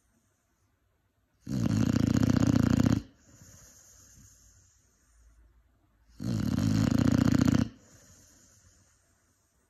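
Five-month-old Cane Corso puppy snoring in its sleep: two loud snores about four and a half seconds apart, each about a second and a half long, with softer breathing between them.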